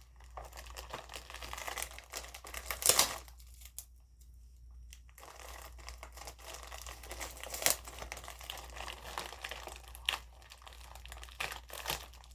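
Plastic mailer package crinkling and rustling as it is handled and pulled at to get it open, with a few sharp louder crackles or tears and a short lull partway through.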